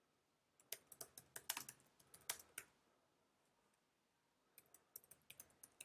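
Faint typing on a computer keyboard: a quick run of keystrokes for about two seconds, a pause of nearly two seconds, then a second run near the end.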